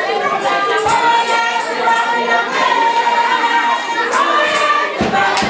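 A congregation singing together, with many voices holding one long note for about three seconds in the middle.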